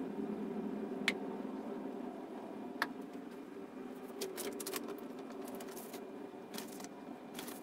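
Faint kitchen handling noises: two sharp clicks in the first three seconds, then rustling as a paper bag of flaxseed meal is handled and opened, all over a steady low hum.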